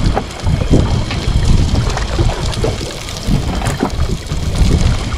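Wind buffeting the microphone in uneven gusts, with scattered light clicks and knocks of handling.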